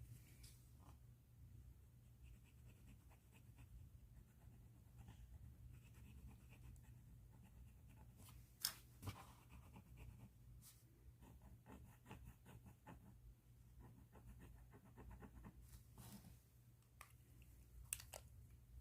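Faint pen strokes scratching on paper in quick runs, with a low steady hum beneath and two sharp clicks, about halfway through and near the end.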